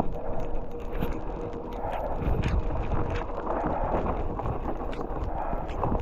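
Mountain bike riding over a frozen, snowy trail: a rumble from the tyres with many small knocks and clatters from the bike. A steady hum from distant power-plant generators carries through the first second or so.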